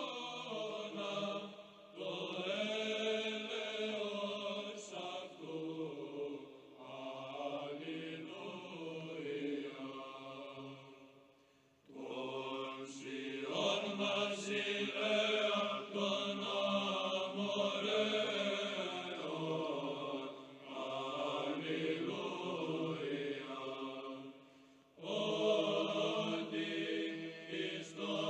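Choral chant of voices holding long, slowly moving notes, sung in phrases with brief breaks about 2, 12 and 25 seconds in.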